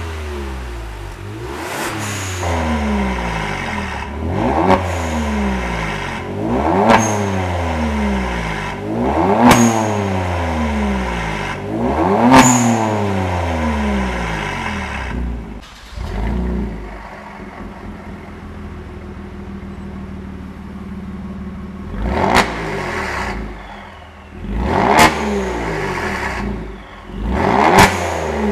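Kia Stinger 3.3T's twin-turbo 3.3-litre V6 through a Lozic cat-back exhaust, revved in quick blips about every two and a half seconds, each rev falling back toward idle, with a short sharp crack at the top of most revs; the exhaust valve is closed for this first run of revs. It then idles steadily for several seconds before three more blips near the end.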